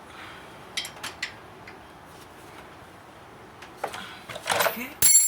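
Metal hand tools clinking at the brake caliper: a few light clicks about a second in, then a run of clanks ending in a loud metallic clang that rings briefly near the end.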